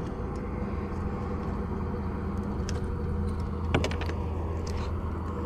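Boat motor running steadily, a low even hum. A few light clicks of handled gear come about four seconds in.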